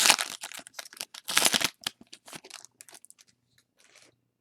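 Plastic trading-card pack wrapper crinkling and tearing as a pack is opened: two loud rustling bursts in the first two seconds, then only faint handling ticks.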